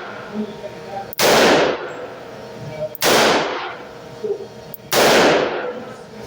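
Three revolver shots from a Chiappa Rhino 60DS, a 6-inch six-shot revolver loaded with mixed .357 Magnum and .38 Special rounds, fired about two seconds apart. Each is a sharp crack that rings out over about half a second.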